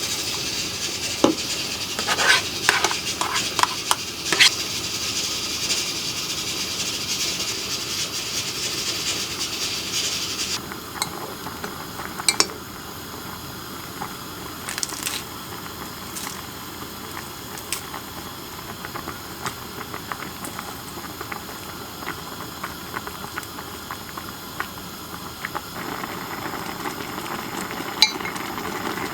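Food hissing and sizzling in a pan on the stove, loud for about the first ten seconds, then cutting to a quieter simmer, with occasional clinks of a utensil against the pan or dishes.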